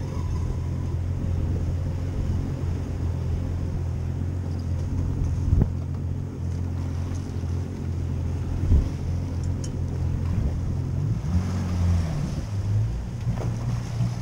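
A boat's outboard motor running at low speed with a steady hum. Its pitch dips and changes about eleven seconds in. Two sharp knocks come in the middle.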